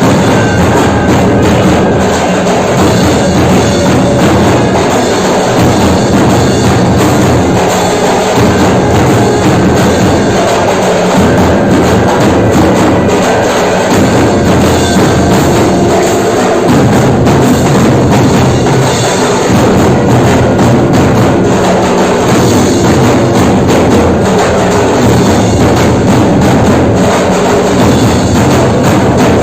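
Loud devotional music with a steady percussion beat.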